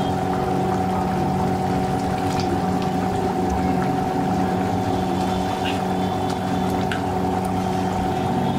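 A steady mechanical hum made of several fixed tones, with a few faint clinks as a serving spoon touches a glass bowl while fish pieces are lifted out.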